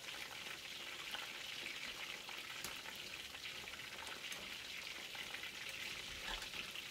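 Battered fish fillets deep-frying in hot oil in a wok: a steady sizzle with fine crackling.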